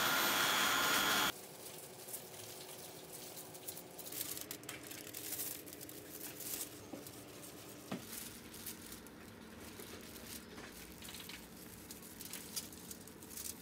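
Disposable plastic gloves and crumpled aluminium foil crinkling and rustling as hands shape and press balls of cotton candy, with uneven light crackles. It opens with a loud steady noise that cuts off abruptly just over a second in.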